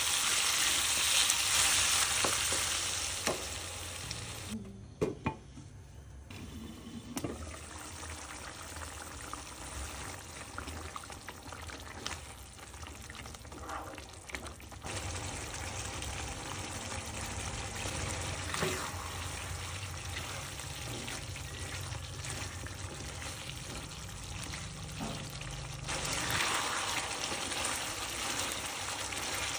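Chicken pieces in a thick chili spice paste sizzling in a pan while being stirred with a spatula, with occasional knocks of the spatula. The sizzling drops to a quieter level after a few seconds and grows louder again near the end.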